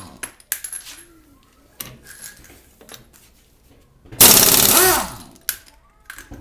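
Ingersoll Rand 231C half-inch pneumatic impact wrench, run at 90 psi, hammering a lug nut loose in one loud burst of under a second about four seconds in, its air motor falling in pitch as it winds down. Before the burst there are light metallic clicks and knocks.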